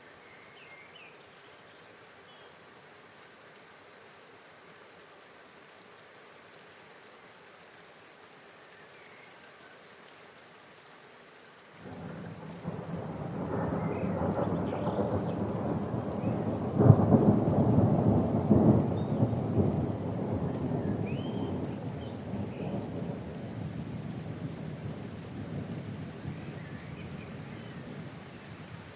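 Steady rain falling, then about twelve seconds in a long roll of thunder breaks in suddenly. It swells to its loudest with a sharp crack a few seconds later, then rumbles slowly away under the continuing rain.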